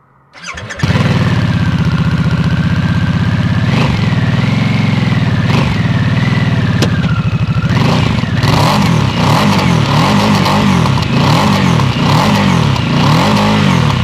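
Harley-Davidson Nightster's Revolution Max 975T V-twin starting up about half a second in and idling steadily. Then, from about halfway through, the throttle is blipped over and over, the revs rising and falling in quick succession.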